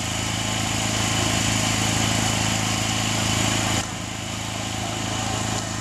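Steady hum of a small engine running, its level dropping abruptly a little under four seconds in and building back up.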